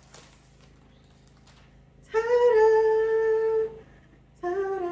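A person humming two long held notes, the second one lower, after a couple of seconds of quiet room tone.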